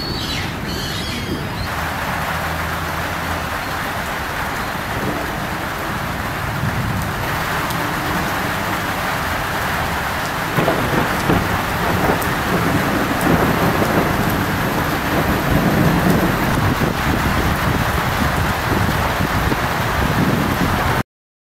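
Steady heavy rain hissing during a thunderstorm, with an uneven low rumble underneath. It grows louder about ten seconds in and cuts off suddenly near the end.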